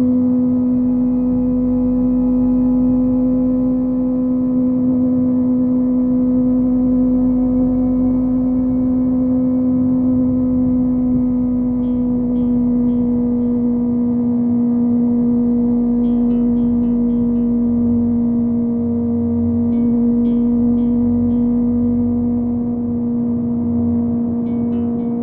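Kawasaki ZX25R's 250 cc inline-four, fitted with a Yoshimura exhaust, running at a steady high cruising rpm. The engine note stays almost constant, easing slightly about halfway through, over wind and road noise. Faint short ticks come in a few small clusters.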